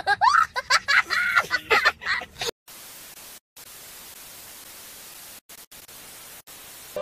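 A young child laughing and squealing in high, swooping peals for about two and a half seconds. It cuts off abruptly to a steady hiss of TV static, broken by a few brief dropouts to silence.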